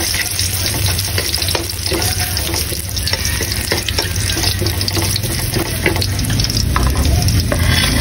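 Minced garlic sizzling in hot oil in a metal wok, with the short scrapes and clicks of a spatula stirring it against the pan.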